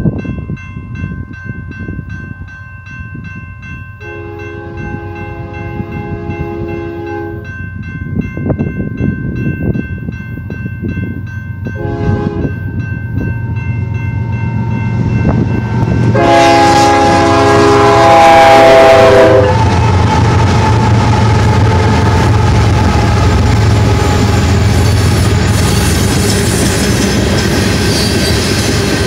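Grade crossing bell ringing steadily as a Union Pacific freight train approaches, its locomotive horn sounding a long blast about four seconds in, a short one near twelve seconds, and a louder long one around sixteen seconds. From about nineteen seconds the train's locomotives and loaded coal cars run past the crossing in a loud steady rumble, with wheels clacking over the rail joints.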